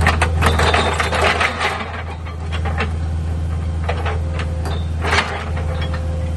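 Diesel engine of a tracked auger drill rig running steadily while it bores a foundation hole, with bursts of scraping and clatter from the auger and dirt in roughly the first two seconds and again around four to five seconds in.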